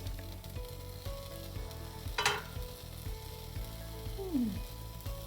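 Miso chicken meatballs sizzling steadily in oil in a frying pan over low heat, nearly cooked through. There is a short sharp sound about two seconds in.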